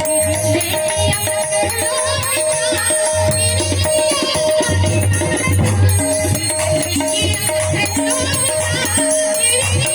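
Indian folk music with a steady, pulsing beat, a repeated held note and rattling percussion.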